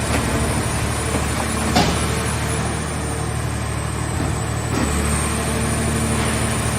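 Hydraulic scrap car baler running steadily, its engine and hydraulic pump giving a constant drone, with one sharp metallic knock about two seconds in.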